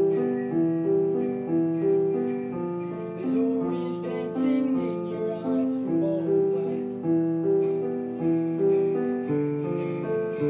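Piano playing a slow, repeating broken-chord pattern, about two notes a second in an even pulse.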